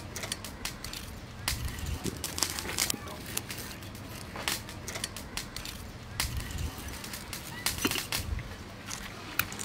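Crisp fried noodle strands crackling and crunching in irregular sharp snaps as pieces of fried fish are pressed down onto them by hand and with metal tongs.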